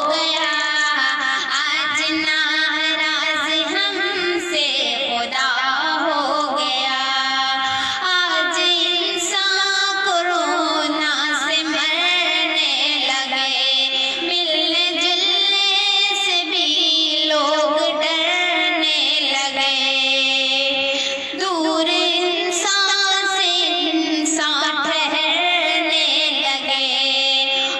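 A solo female voice singing an Urdu devotional song (nazm) in long, wavering held notes, with ornamented turns and few clear words.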